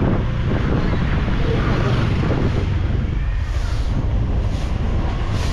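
Wind buffeting the microphone while riding a bike, a steady rough noise that doesn't let up.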